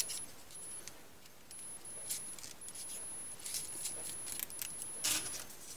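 Folded paper triangle units rustling and crinkling as they are handled and pushed together into a modular origami model, a run of small crisp crackles with the loudest crinkle about five seconds in.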